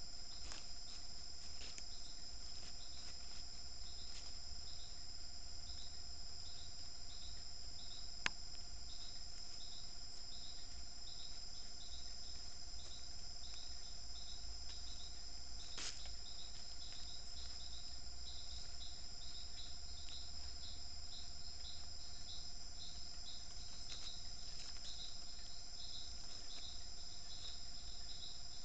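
Night insects, crickets among them, chirring: a steady high drone with a short chirp repeated a few times a second. One sharp click about eight seconds in.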